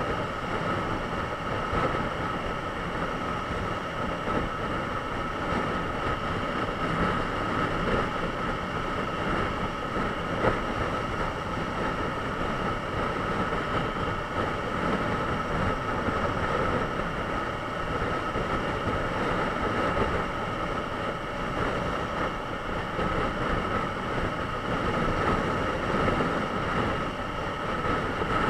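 Honda CBR954RR inline-four sport bike cruising steadily at about 100 km/h, its engine note under a constant rush of wind over the camera's microphone.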